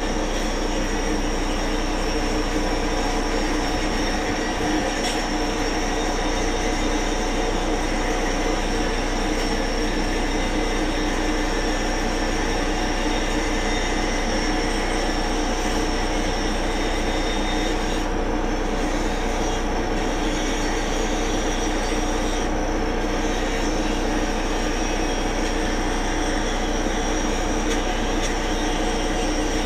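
A machine running steadily: a constant drone with several steady tones that holds unchanged throughout.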